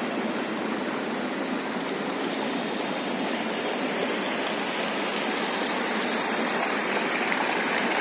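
Sea surf washing onto a sandy beach: a steady rushing noise with no separate wave breaks standing out.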